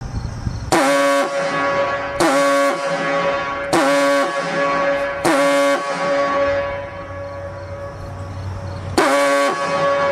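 Diaphone foghorn sounding: a deep pitched horn blast re-struck about every one and a half seconds, each blast starting sharply with a brief pitch dip. The tone is held and lingers with echo for a few seconds in the middle before the blasts resume near the end.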